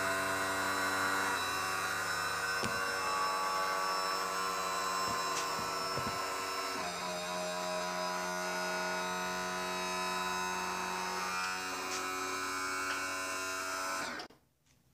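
Electric power trim-and-tilt motor on a 1989 Evinrude 175 HP outboard running steadily as it tilts the engine up, its hum shifting in pitch a couple of times as the load changes, with a few light knocks. It cuts off suddenly about a second before the end.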